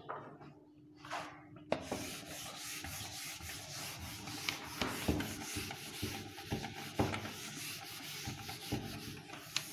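Handheld whiteboard eraser rubbing marker off a whiteboard in quick back-and-forth strokes, starting about two seconds in.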